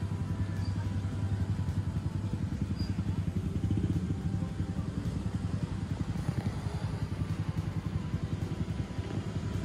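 City street traffic: cars passing on a multi-lane avenue, a steady low rumble of engines and tyres.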